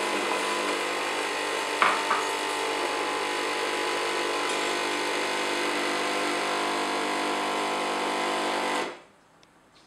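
Home espresso machine's pump running steadily, pushing hot water through the thermoblock and out of the group head into cups, which cools the block from steam temperature down to brewing temperature. It cuts off suddenly about nine seconds in, and a brief knock sounds about two seconds in.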